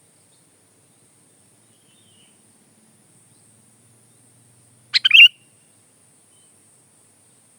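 Sooty-headed bulbul (kutilang) giving one short, quick phrase of a few chirping notes about five seconds in, with near silence either side.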